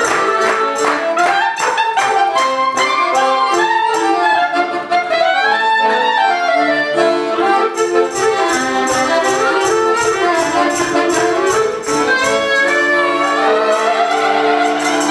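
Clarinet and piano accordion playing a tune together live: the clarinet's melody rises and falls over the accordion's sustained chords, with a steady ticking beat.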